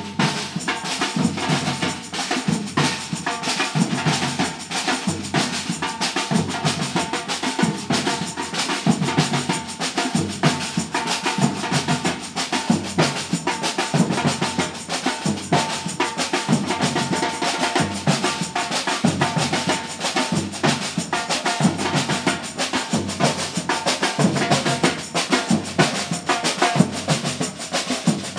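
A percussion group playing together: large surdo-style bass drums struck with mallets under snare drums played with sticks, in a steady, dense rhythm.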